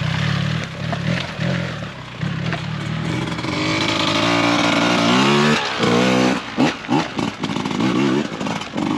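Off-road motorcycles riding past on a gravel track: one engine running steadily as it pulls away, then another dirt bike accelerating, its engine note rising in pitch about halfway through, followed by a few sharp revs.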